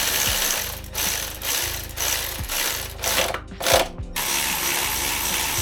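Electric ratchet spinning in several short runs with brief stops between them, driving spark plugs back into a BMW N54 engine.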